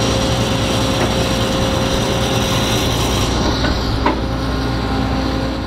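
Diesel engine of a John Deere 9770 STS combine running steadily, with one small knock about four seconds in.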